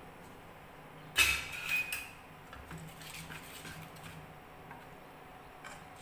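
A stainless-steel wire skimmer clinks once against metal about a second in, with a brief ringing, followed by a few faint small clicks.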